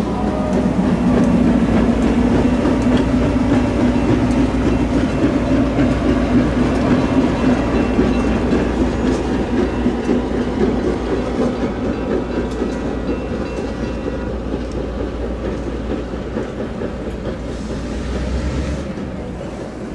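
EMD GP9 diesel locomotive running along the track with a steady, low engine drone, loudest at first and fading gradually as it moves away.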